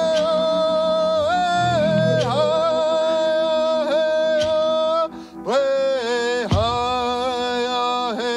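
A man singing a First Nations honor song unaccompanied, in long high held notes that bend and slide between pitches, with a short break for breath about five seconds in.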